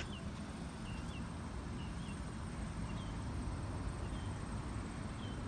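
A bird repeating a short, high chirp about once a second, over a steady low rumble.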